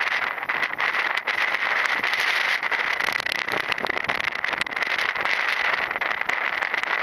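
Strong storm wind buffeting an action camera's microphone: a loud, steady rushing with constant crackling gusts.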